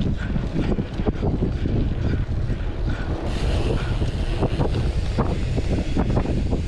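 Mountain bike rolling fast over a bumpy dirt trail: a steady tyre rumble with many quick knocks and rattles from the bike, and wind buffeting the microphone.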